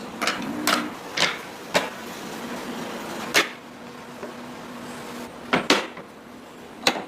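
Irregular sharp knocks of wood being struck, about eight in all, two of them in quick succession past the middle, as pieces are hammered or tapped together in woodworking.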